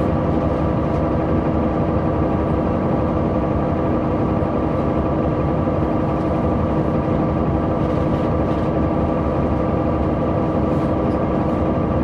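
Caterpillar C9 ACERT diesel engine of a 2003 Neoplan AN459 articulated transit bus running steadily, heard from inside the bus, its note holding even with no revving.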